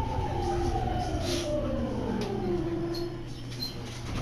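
Sotetsu electric train slowing to a stop: its motor whine falls steadily in pitch as it brakes, over the low rumble of the running gear.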